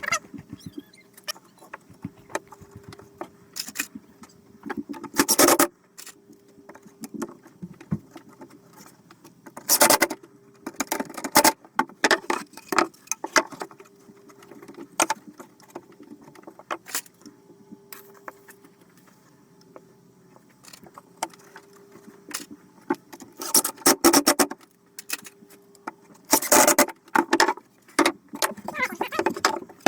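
Workshop handling sounds while building a wooden shelf: scattered clicks and knocks of tools and parts being moved, with several short metallic rattling bursts.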